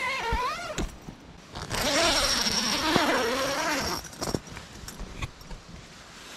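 Helsport Reinsfjell Pro 2 tent door zipper being pulled open, a scratchy hiss loudest from about two to four seconds in, under a person's drawn-out, wavering vocal sound, followed by a few light clicks of the fabric and zipper.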